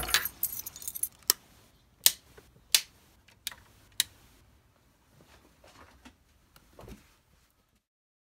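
Keys jangling in a door lock, then a series of five sharp clicks over the next three seconds, the last as a wall plug socket switch is pressed.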